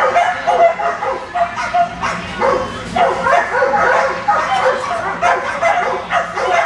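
Many dogs barking and yipping at once, short barks overlapping in a continuous din with no pauses, the typical racket of keyed-up flyball dogs waiting to run.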